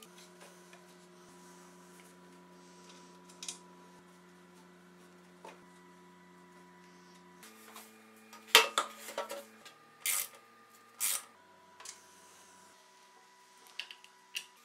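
Hand work on steel parts of a lawn tractor: a cluster of metal clanks and knocks a little past halfway, followed by two short scraping sounds about a second apart and scattered light clicks, over a faint steady hum.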